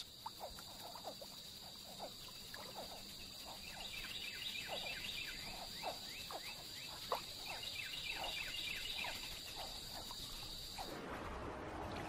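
Faint swamp ambience: a steady high insect buzz with a second, higher tone, joined by many short falling frog chirps, several a second from about four seconds in. Both cut off abruptly about a second before the end, leaving a faint hiss.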